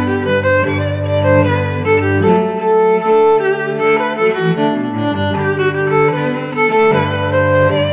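Instrumental background music led by bowed strings: a melody over held low notes. The low notes drop out about two and a half seconds in and return near the end.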